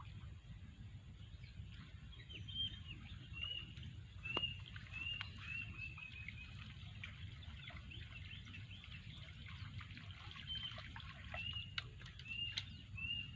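Birds calling: a string of short, high, arched chirps repeated again and again, over a steady low rumble with scattered light clicks.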